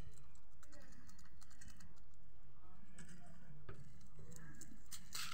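Several rabbits nibbling at a hand-held bunch of small bananas while jostling on the hutch floor: a rapid, irregular patter of small clicks and scuffs.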